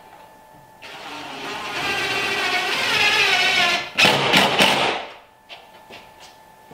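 Cordless drill/driver driving a screw into the wooden cabinet frame: a motor whine that rises in pitch for about three seconds, then about a second of loud rattling as the screw seats, stopping abruptly.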